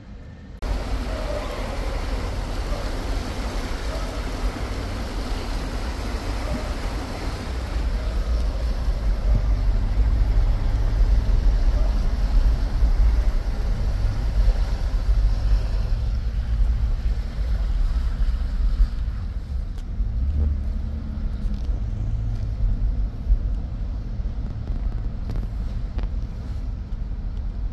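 Car engine and tyres heard from inside the cabin as an SUV drives through standing floodwater: a steady low rumble with water hissing and splashing off the wheels, heaviest in the first several seconds and easing after.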